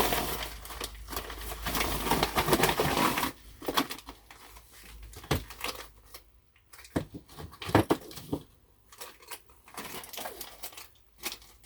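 Plastic packaging crinkling as kit parts are unwrapped, followed by scattered light clicks and knocks of small parts being handled.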